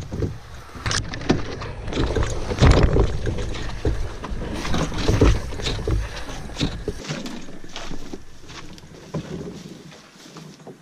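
Footsteps crunching through brush, with twigs and branches scraping and knocking against a canoe hull carried overturned on the shoulders during a portage. Wind on the microphone rumbles heavily and drops away about two-thirds of the way through.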